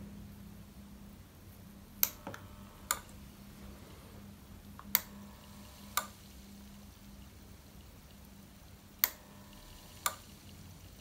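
A relay on the charger's XY-CD60 charge/discharge module clicking in three pairs, each pair about a second apart, over a steady low hum from the transformer charger. This is the charger switching on and off as the battery reaches the set cutoff and restart voltages.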